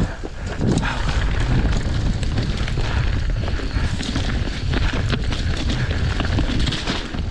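Wind buffeting the microphone over the rumble of mountain bike tyres on rough dirt trail at speed, with frequent sharp clatters as the bike rattles over bumps.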